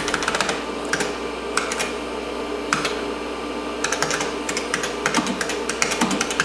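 Computer keyboard keys clicking in irregular bursts as a DOS format command is typed, over the steady hum of the running PC.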